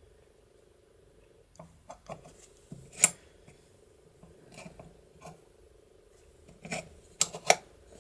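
Small steel parts of an opened mortise latch lock clicking and clacking as they are handled and the latch bolt and levers are worked by hand. There are scattered light clicks, a sharp clack about three seconds in, and a quick run of clicks near the end, two of them sharp. A faint steady hum runs underneath.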